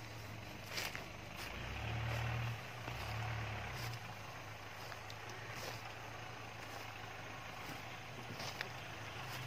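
Off-road jeep's engine running as it drives over rough grass, a low drone that swells twice in the first few seconds and then settles lower.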